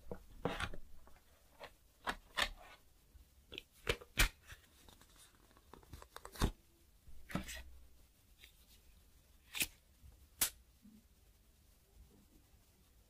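Unboxing handling noise: cardboard box parts and paper inserts rustling and sliding, broken by a series of sharp clicks and taps about once a second, the loudest around four seconds in. The handling stops over the last few seconds, leaving only faint room tone.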